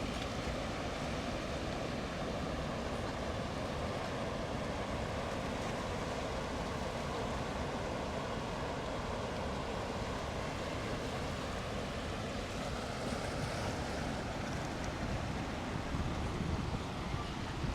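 Bow Falls on the Bow River: a steady, even rush of falling water.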